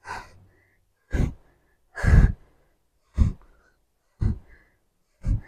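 A woman's breathy exhalations of effort, short and evenly spaced about once a second, one with each small pulse of a sumo squat held low with a dumbbell.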